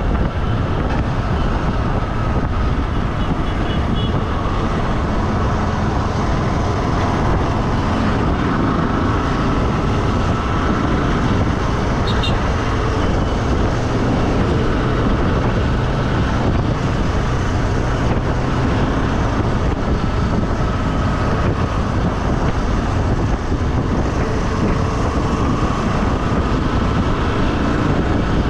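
Steady rumbling noise of a moving road vehicle travelling along the road, with no break or change.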